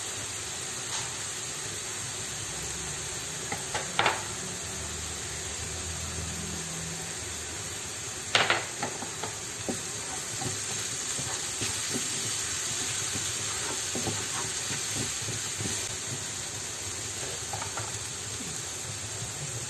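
Sambal sizzling as it is sautéed in a little oil, with a steady hiss, and a spatula stirring and scraping against the pan, knocking sharply about 4 and 8.5 seconds in.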